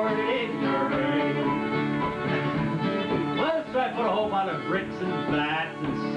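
Live fiddle and acoustic guitar playing a tune while a man sings along.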